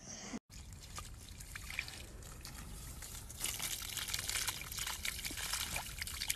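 Water running from an open garden hose onto a brick path, a steady trickling and splashing that grows louder about three and a half seconds in.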